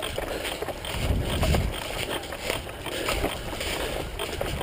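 Scattered airsoft gun shots, sharp irregular cracks, over rough rustling and low wind rumble on the microphone, strongest about a second in.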